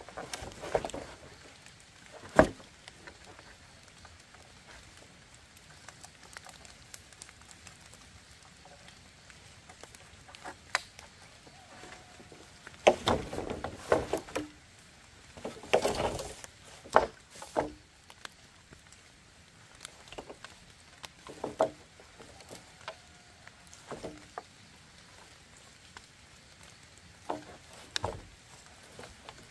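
Irregular knocks and taps with short stretches of rustling. There is one sharp knock a couple of seconds in, a busier run of knocks and rustling about halfway through, then single knocks spaced a few seconds apart.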